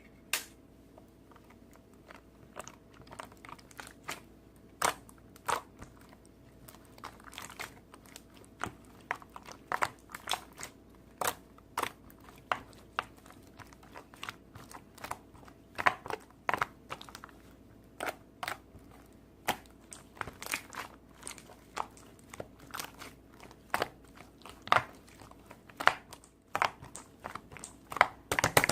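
Crunchy slime being pressed and squeezed by hand, giving irregular sharp crackles and pops about one or two a second, with a dense run of crackling at the very end.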